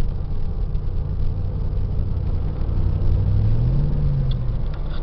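Car engine and tyre rumble heard from inside the cabin at highway speed, a steady low hum that rises in pitch about three and a half seconds in and then eases off.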